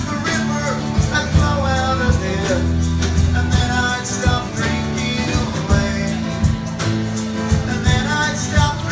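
Live band music: drum kit, bass and guitar playing a steady beat, with a melody line over them.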